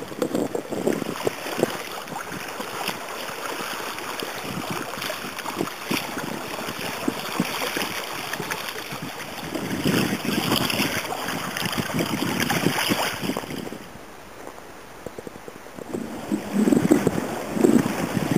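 Wind buffeting the microphone over waves and water lapping around kayaks on the sea. It drops quieter for about two seconds about three-quarters of the way through, then gusts strongly again.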